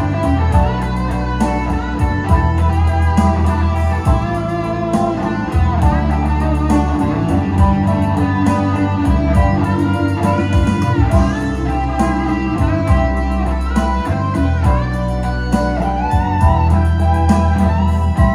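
Instrumental break of a Vietnamese pop ballad: a lead guitar melody with bending notes over a heavy, steady bass line, played through a large PA sound system.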